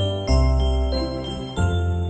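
Christmas-style music with jingle bells ringing over a low bass line that changes note about every second.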